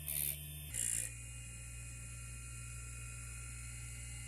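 Bench grinder motor running steadily while a twist drill bit's tip is touched to the grinding wheel, giving two short high grinding rasps in the first second. After that only the grinder's steady running is heard.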